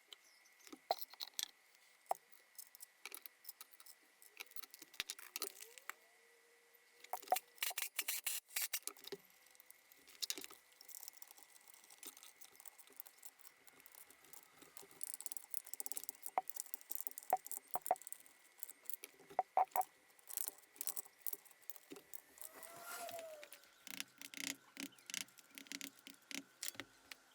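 Scattered metallic clicks, clinks and light knocks of hand tools and parts being handled while reassembling a gearbox, coming in irregular clusters, with a faint steady high whine behind them.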